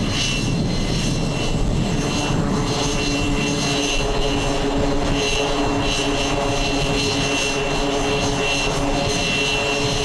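C-2 Greyhound's twin Allison T56 turboprop engines running at steady power: a loud, even drone with a high turbine whine over it.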